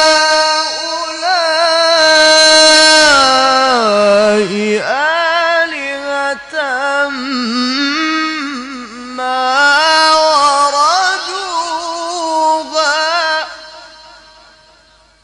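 Male Quran reciter chanting in the melodic Egyptian mujawwad style, drawing a single long phrase out in winding melismatic runs that rise and fall in pitch. The voice breaks off about thirteen seconds in and fades away.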